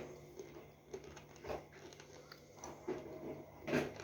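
Mouth-close chewing of a moistened, crumbly food, with a few soft crunchy bites; the loudest bite comes near the end.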